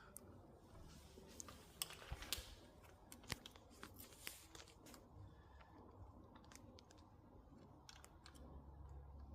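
Faint, scattered clicks and light knocks of small bike parts and tools being handled during assembly. There is a cluster about two seconds in, and a sharper knock just after three seconds.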